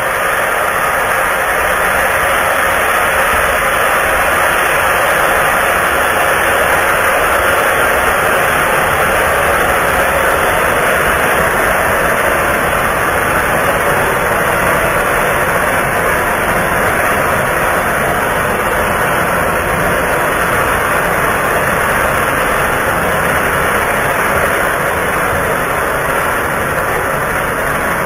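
Anar (flower-pot fountain) firework spraying sparks with a loud, steady hiss.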